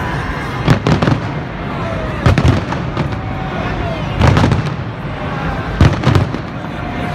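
Fireworks display: aerial shells going off with a loud bang every second or two, over the steady noise of a large crowd.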